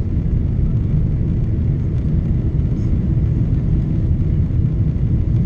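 Steady low rumble of an airliner's jet engines and rushing airflow, heard inside the passenger cabin during descent.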